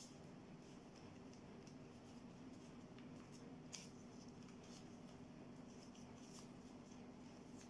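Faint rustling and crackling of origami paper being folded and creased by hand, with one sharper crinkle about four seconds in, over a low steady hum.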